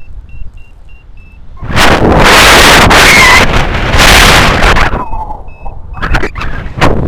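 A flight variometer beeping in short, evenly repeated high tones, the pattern it gives in rising air. Strong wind buffets the microphone loudly for about three seconds in between, then the beeps return briefly before more gusts near the end.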